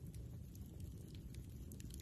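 Campfire crackling: scattered faint pops and ticks over a low steady rumble.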